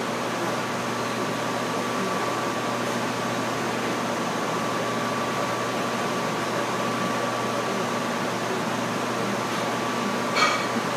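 Steady room hum and hiss with a thin high whine running under it, and a short knock near the end.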